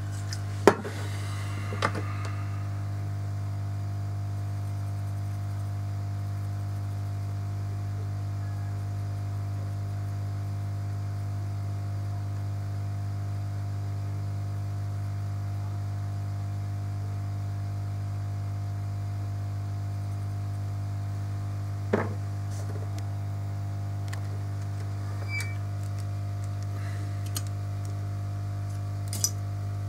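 Steady low electrical mains hum with a few sharp clicks or taps: two near the start, one about two-thirds of the way through, and one near the end.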